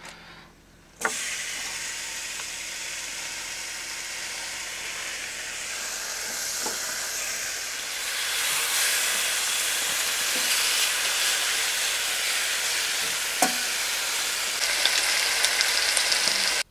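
Bacon and eggs sizzling in a frying pan. The sizzle starts suddenly about a second in and grows louder about eight seconds in, with a few light taps.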